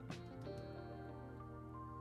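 Background music: held instrumental notes, with a plucked note just after the start.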